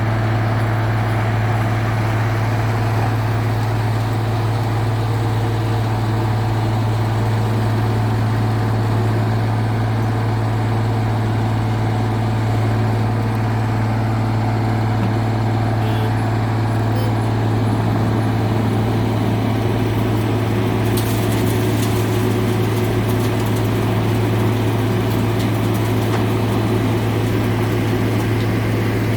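Wirtgen W2000 cold milling machine running with a steady, heavy diesel drone and a strong low hum. About two-thirds of the way through, faint rapid crackling ticks join in.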